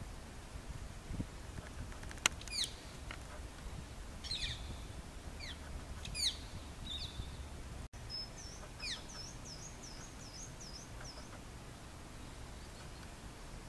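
Rose-ringed parakeets calling: several short, sharp calls that fall steeply in pitch, through the first half. About eight seconds in comes a quick run of about eight high chirps.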